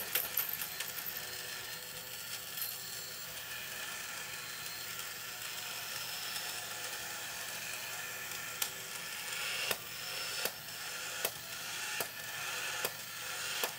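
Small electric motor and gear train of a 1960s Nomura Charley Weaver Bartender battery-operated tin toy running with a steady whir as it shakes and pours. In the last few seconds sharp clicks come about once a second.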